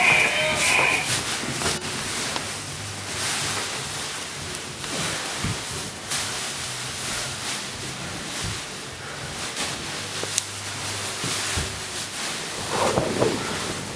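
Rustling and crinkling of plastic sheeting as performers handle and move through it, with scattered faint clicks, over a low steady hum.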